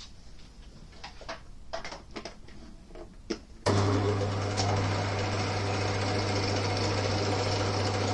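A few light clicks and knocks, then about three and a half seconds in an old Winfield lathe's electric motor switches on and runs with a steady hum.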